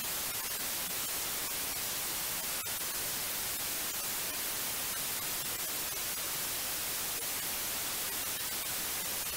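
Analogue television static: a steady hiss of white noise with faint crackling ticks through it.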